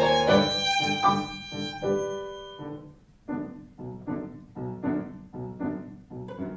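Violin with piano accompaniment playing classical music: held notes for the first two seconds or so, then a brief fade to near pause, then a run of short, detached notes.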